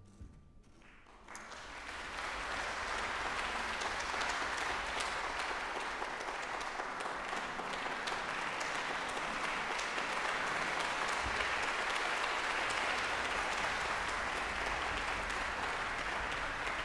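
Concert audience applauding, starting about a second in just after the final chord dies away, and keeping up a steady, dense applause.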